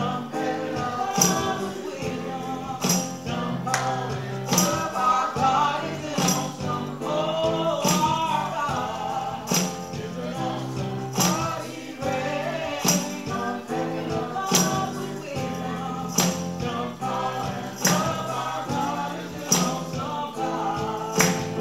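Gospel music: voices singing over steady bass notes, with a tambourine struck in a regular beat, an accented hit about every second and a half.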